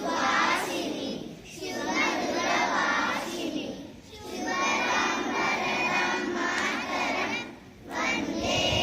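A group of children singing together in unison, in phrases separated by short breaks.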